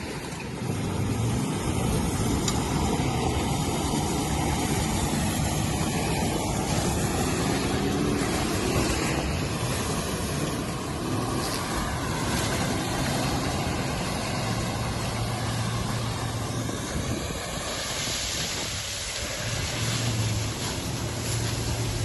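Vehicle engine running and revving, its pitch rising and falling several times, over a constant rushing noise.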